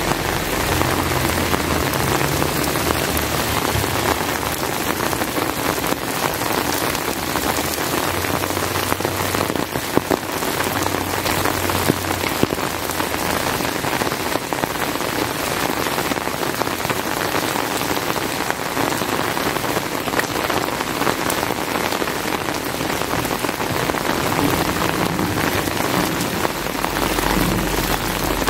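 Heavy rain falling steadily, an even hiss of drops on hard surfaces, with a low rumble coming and going underneath.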